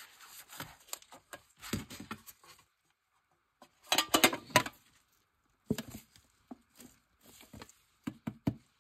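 Trading-card packs and cards being handled: short rustles and light taps and knocks. The busiest, loudest rustling comes about four seconds in, after a brief silent gap.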